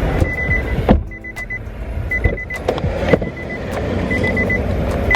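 Electronic beeping: clusters of short, high beeps repeating about once a second over a low rumble, with a sharp knock about a second in.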